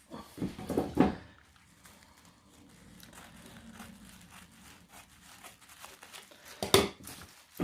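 Packaging being opened by hand, crinkling and rustling: a cluster of sharp crinkles about a second in and one loud crinkle near the end.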